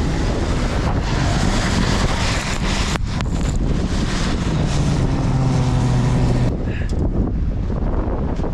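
A lifted Jeep's engine revving hard as it ploughs through deep snowdrifts, wheels spinning and throwing up snow. It is driving in two-wheel drive only, because of a blown differential. Wind buffets the microphone throughout; the engine note climbs about halfway through and holds, then the sound changes abruptly near the end.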